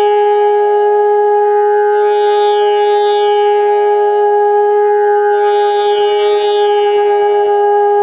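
G-sharp bamboo bansuri holding one long, steady Sa note over a tanpura drone tuned to G-sharp, whose plucked strings ring in slow repeating shimmers. The flute's note sits in tune with the drone's Sa.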